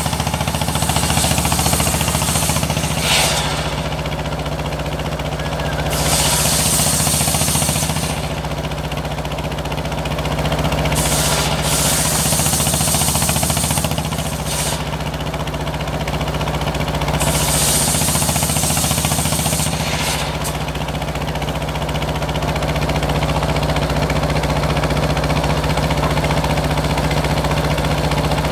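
Engine-driven circular sawmill running steadily while its large blade cuts lengthwise through a petai log. The high hiss of the blade in the wood comes and goes in several passes of one to three seconds each over the low, even engine hum.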